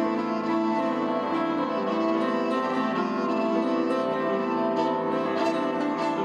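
Violin and upright piano playing together in a live duet, the bowed violin holding long notes over the piano.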